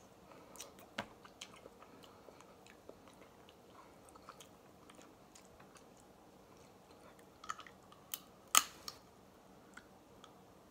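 Snow crab leg shells being cracked and pulled apart by hand and teeth: scattered sharp cracks and clicks, the loudest about eight and a half seconds in, with quiet chewing in between.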